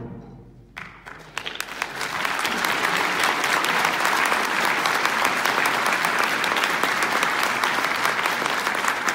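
Audience applauding a concert band. The band's final chord rings away at the start, and clapping breaks out about a second in, quickly filling into steady, sustained applause.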